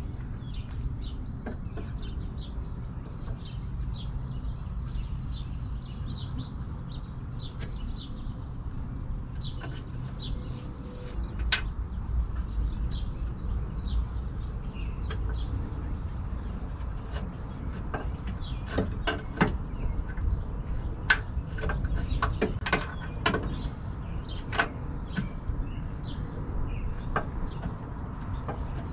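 Scattered light clicks and knocks of metal as a new rear shock absorber is worked up into its upper mount on a Nissan Pathfinder. They are heavier and more frequent in the second half, over a steady low rumble.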